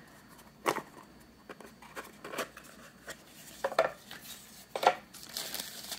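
A small ceramic paint pan and its card box being handled: four short clicks and knocks, like ceramic or card tapping together or set down on a wooden table. About five seconds in, paper starts rustling as the wrapping is opened.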